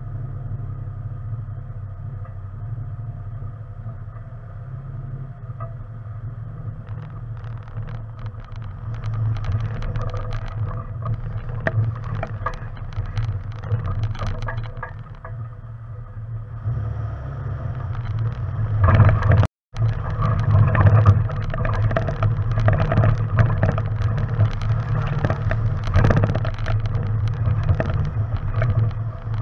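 Off-road vehicle engine running with a steady low hum while the vehicle drives a rough, muddy dirt trail. Tyre noise and body and suspension rattles build up and grow louder in the second half. The sound cuts out for a moment about two-thirds of the way through.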